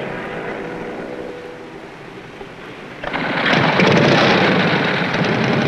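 Motorcycle engine note fading as the bike rides away. About three seconds in, a loud, rough motorcycle engine rumble cuts in abruptly and runs on.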